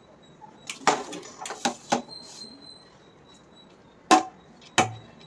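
Metal slotted spoon clinking and knocking against an aluminium cooking pot as parboiled basmati rice is ladled in for a biryani layer: a handful of short, sharp clinks, the two loudest in the second half.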